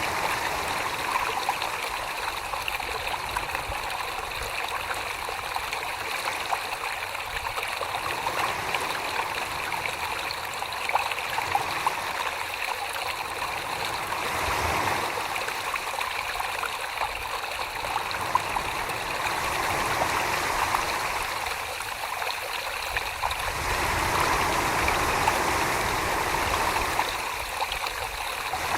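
Wet clay and slip swishing under the potter's hands on a spinning pottery wheel: a steady watery hiss that swells and eases every few seconds.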